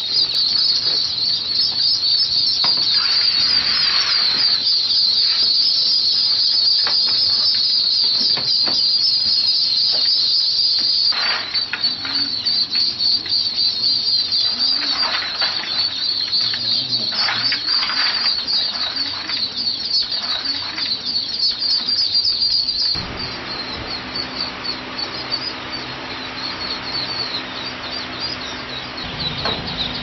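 Dense, continuous high peeping of a great many newly hatched ducklings, with intermittent rustling and clatter as hands sort through the eggshells. About 23 seconds in the peeping drops in level and a steady low hum comes in beneath it.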